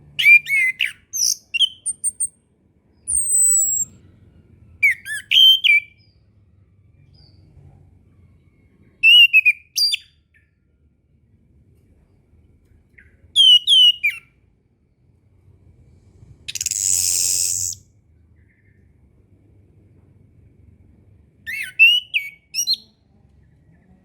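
Chestnut-capped thrush (anis kembang) singing short, rapid phrases of quick gliding whistles, each about a second long, with pauses of one to three seconds between them. About 17 s in there is one harsh hissing note in place of a whistled phrase.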